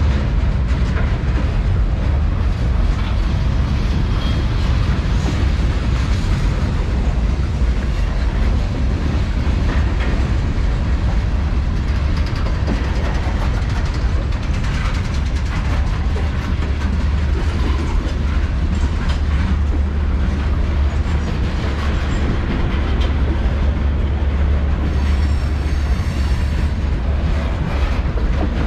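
Norfolk Southern manifest freight train rolling steadily past, with a constant low rumble and the clickety-clack of car wheels over rail joints.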